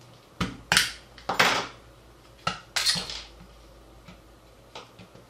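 Flat metal pry tool levering the plastic end cap off a pen-type multimeter: a quick run of sharp clicks, snaps and short scrapes of metal on hard plastic in the first three seconds, then a few faint ticks as the cap is worked free by hand.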